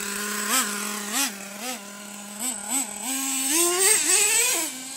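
Traxxas T-Maxx 3.3 RC truck's small two-stroke nitro engine running, blipped up in about five short revs, then revved longer and climbing in pitch from about three seconds in before dropping back near the end.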